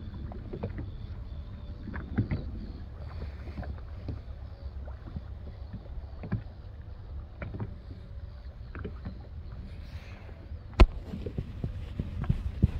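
Small waves lapping and slapping against the hull of a small boat, with scattered knocks: a sharp knock about eleven seconds in and a few more near the end.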